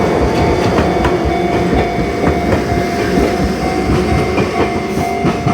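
Enoden electric train rolling over a level crossing, its wheels clacking over the rail joints. A steady tone from the crossing's warning alarm rings through it.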